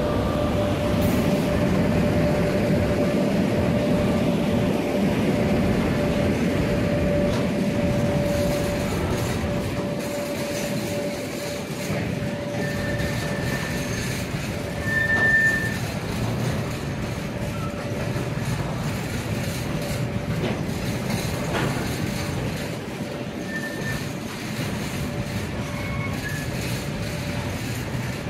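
A freight train of empty flat wagons rolling past, its wheels rumbling steadily on the rails. A steady mid-pitched tone runs through most of it, and a few brief, higher squeals come a little before halfway, the loudest about halfway.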